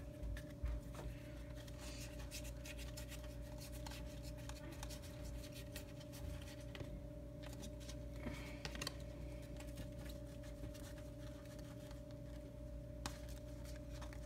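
Baseball trading cards being handled and flipped through one by one, giving faint rustling and light scratchy clicks of card stock sliding over card stock, over a steady low hum.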